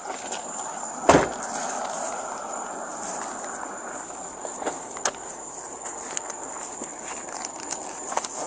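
Outdoor background picked up by a police body camera's microphone: one loud thump about a second in, then a steady hiss with a faint high steady whine and a few light clicks.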